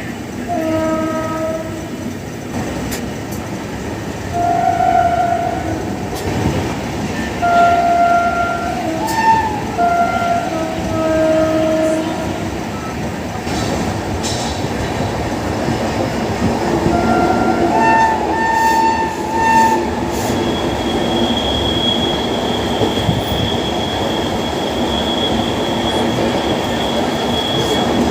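Train horn sounding a run of shrill honks, short and longer, some stepping up in pitch, over the rumble and clatter of a train running on the rails. The honks stop about two-thirds of the way in, and a steady high whine joins the running noise.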